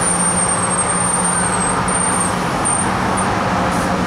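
Comeng electric suburban train pulling slowly into a station platform. Its running noise is steady, with a constant low hum and a thin high whine that eases down in pitch and breaks off about two seconds in.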